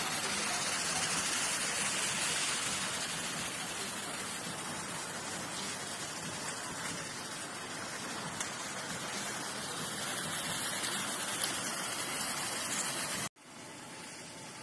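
Steady rushing hiss of water, broad and even, with no rhythm or tone. It cuts off abruptly about thirteen seconds in and gives way to a fainter steady hiss.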